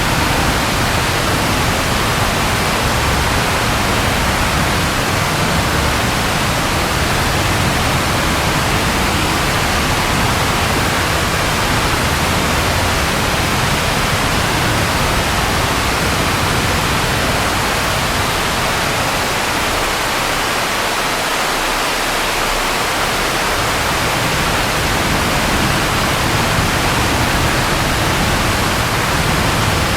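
Steady rain falling, an even hiss with a low rumble underneath that eases for a few seconds about two-thirds of the way in.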